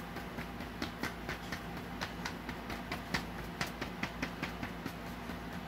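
Pen tip tapping dots onto a sheet of paper: quick, irregular light ticks, about three or four a second, over a steady low hum.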